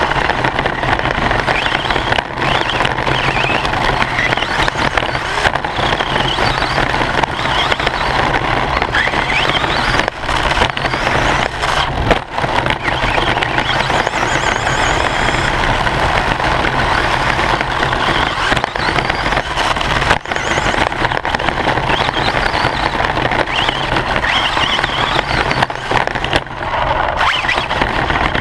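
Onboard sound of a Team Associated RC short course buggy driving on a dirt track: a motor and gear whine that rises and falls with the throttle over constant rattling and tyre noise, broken by frequent sharp knocks from bumps and landings. Heard from a camera inside the car's body, close and loud.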